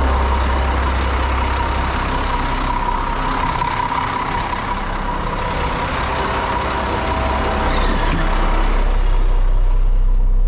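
Cement mixer truck's diesel engine running steadily at idle. About eight seconds in there is a short hiss, after which the engine is heard duller and lower from inside the cab.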